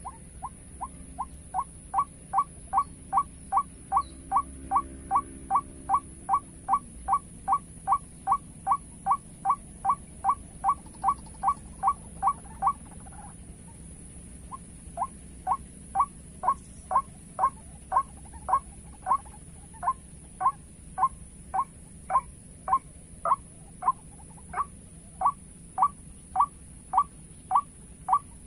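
White-breasted waterhen calling: a long series of identical short notes, about three a second. Each series starts softer and grows louder. The calling breaks off just before halfway and starts again about two seconds later.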